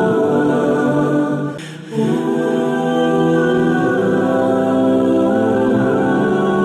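Background vocal music of choir-like voices holding long notes, with a brief dip in level about one and a half seconds in.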